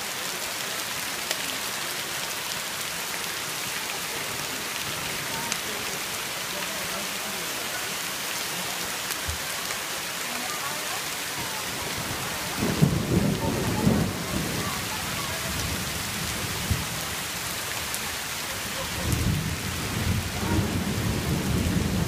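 Steady rain falling on stone paving and leaves, an even hiss throughout. Low rumbling rises twice over it, briefly about halfway and again for the last few seconds.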